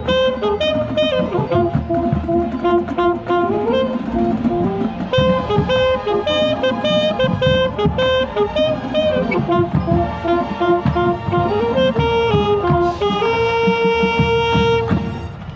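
High school marching band playing, the saxophone close and loud in front of the rest: a stepping melody in repeated phrases that ends on a long held chord near the end, then cuts off.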